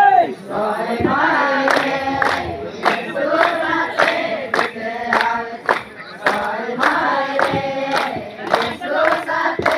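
Mixed crowd of men and women singing a devotional garba song together, with sharp beats keeping time about every 0.6 seconds.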